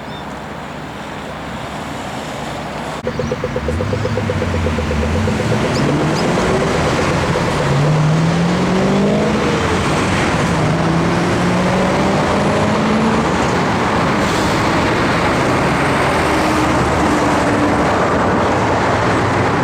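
Passing road traffic, loud and steady, with a vehicle accelerating close by from about three seconds in. Its engine pitch climbs in several steps through the gears.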